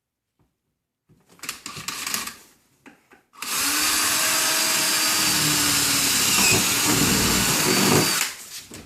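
Power drill with a 1/4-inch bit running steadily for about five seconds, boring a pilot hole through the metal and plastic wall of a refrigerator. Some handling noise comes a couple of seconds before the drill starts.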